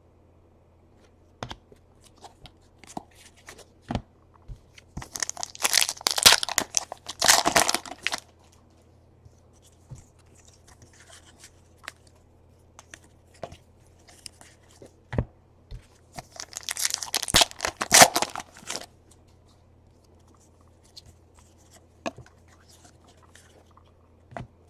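Baseball card foil packs being torn open and crinkled, in two bouts of a few seconds each, with small clicks and taps of cards being handled in between.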